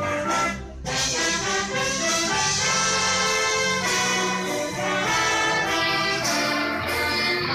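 An orchestra playing, with brass prominent, after a short break between phrases just under a second in.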